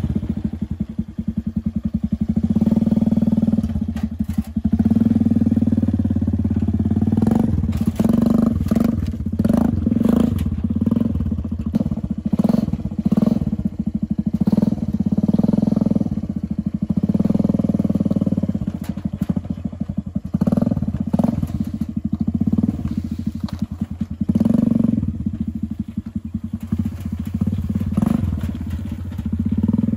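Homemade buggy's 110cc petrol engine running under way, its note rising and falling as the throttle is worked, with scattered knocks and rattles from the bare steel-tube frame over rough ground.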